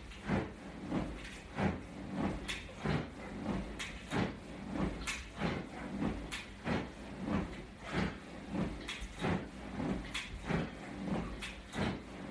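A man doing crunches on an exercise mat: short bursts of movement and breath come in an even, brisk rhythm, about three every two seconds.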